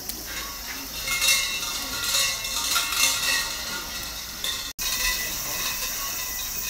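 Small metal bells jingling and ringing on, with several held tones. The sound breaks off abruptly for an instant about three-quarters of the way through.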